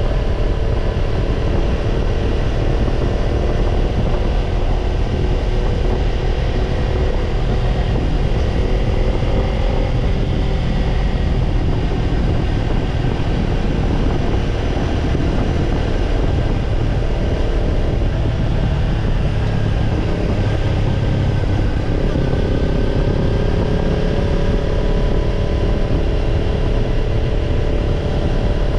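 Kawasaki Ninja 250 parallel-twin engine running through a BEET Japan NASSERT Evolution Type II black titanium slip-on muffler, holding a steady pace on the road. Its pitch sags about ten seconds in and picks up again a little past twenty seconds.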